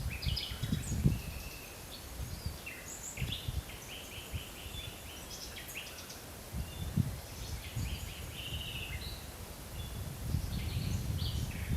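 Several wild birds singing and calling in a forest, with short rapid trills and chirps overlapping throughout. Low gusts of wind rumble at the start and build again near the end.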